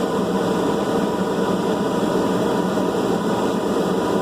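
Forge running with a steady, even rushing noise as a 5160 spring steel sword blade heats to cherry red for the quench.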